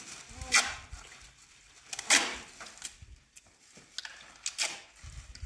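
Adhesive tape being pulled off a roll in short rips: two loud rips about a second and a half apart, then several fainter ones.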